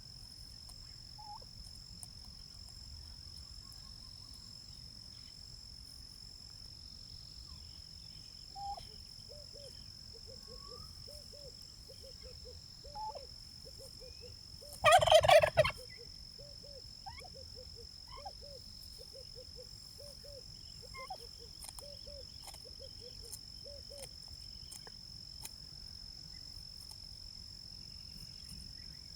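A domestic turkey gobbles once, a loud, rapid rattling call of under a second about halfway through. Behind it runs a steady high drone of crickets, with a string of soft, short bird calls repeating about twice a second.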